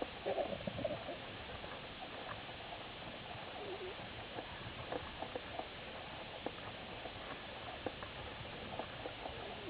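Underwater background noise recorded by a camera in its housing during a freedive: a steady hiss with scattered sharp clicks and crackles.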